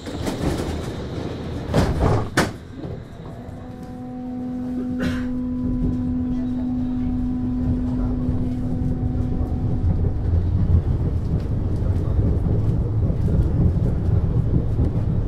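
MAN GTW 72 Schwebebahn suspended railway car: two loud knocks of the doors shutting about two seconds in. Then a steady humming tone for several seconds while the low rumble of the hanging car grows louder as it gets under way.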